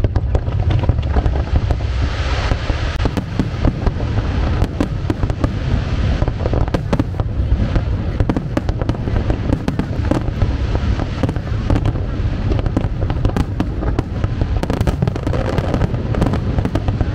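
Aerial fireworks display: a dense, continuous barrage of bangs and crackling bursts over a deep low rumble.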